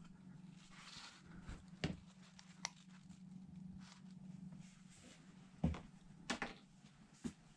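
Faint steady low hum with a few scattered soft knocks and taps as a walleye is handled on a plastic measuring board on the floor; the loudest knock comes a little before the end.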